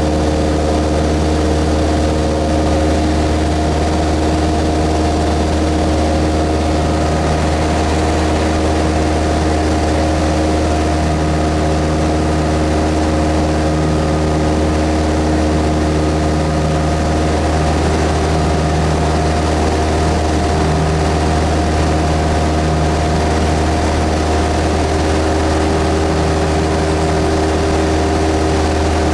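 Cessna 172S's four-cylinder Lycoming engine and propeller running at a steady speed, a constant loud drone with a few steady tones above it.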